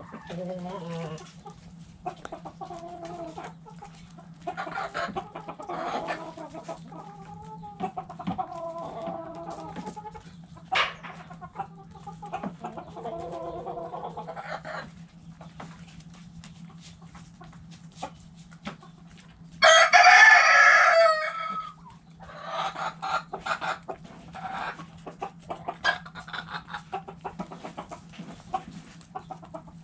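Backyard hens clucking on and off, with a rooster crowing loudly for about two seconds about two-thirds of the way through. A steady low hum runs underneath.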